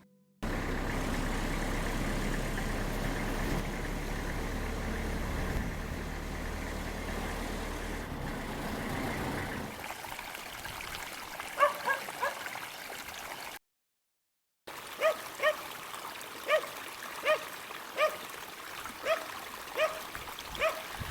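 A car's engine and road noise while driving. After a cut, a dog barks over and over at an even pace, a little more than once a second; the barks are the loudest sounds.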